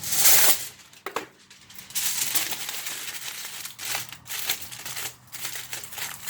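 Aluminium foil crinkling as it is squeezed and handled, in irregular bursts, loudest in the first half second.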